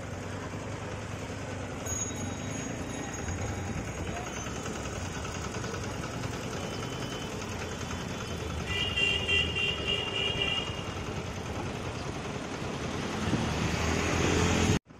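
Busy street traffic noise with a steady rumble. A vehicle horn sounds for about two seconds, about nine seconds in. Traffic grows louder near the end, then the sound cuts off abruptly.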